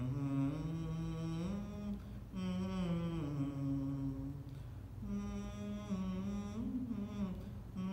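A man's voice chanting a slow devotional melody without clear words, in three long, gently gliding held phrases over a steady low hum.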